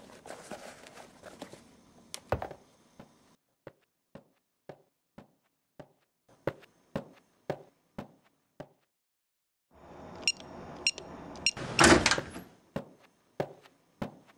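Footsteps, about two steps a second, then a door being opened and banged shut with metallic latch clicks, the loudest moment about twelve seconds in, followed by a few more steps.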